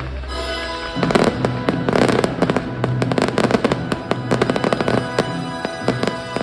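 Fireworks bursting in a rapid, dense barrage, many bangs a second, over the show's music; the bursts begin about a second in and thin out near the end.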